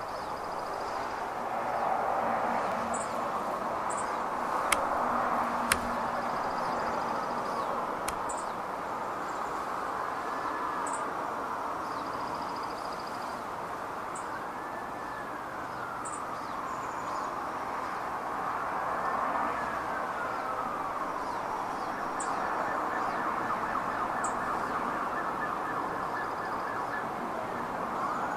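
Distant emergency-vehicle sirens wailing in slow rising and falling glides over a steady background hum of traffic, turning to a fast pulsing tone for a few seconds in the last third. Birds chirp briefly now and then, and there are two sharp clicks about five seconds in.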